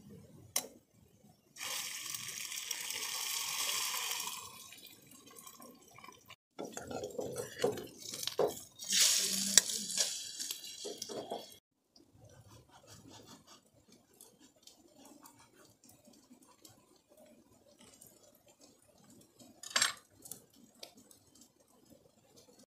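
Camp cooking sounds: a few seconds of liquid hiss and splashing, then clattering of a spoon and steel mug. A quieter stretch of small knife scrapes follows as a bread bun is sliced, with one short clatter near the end.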